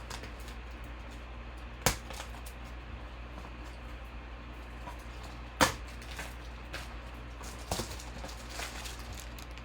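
Trading card packs and cards being handled: scattered light clicks and rustles, with three louder sharp clicks about two, five and a half and nearly eight seconds in, over a steady low hum.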